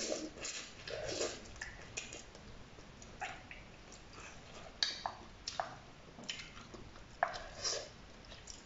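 Instant noodles being slurped and chewed from chopsticks: scattered wet slurps and mouth smacks with sharp clicks in between.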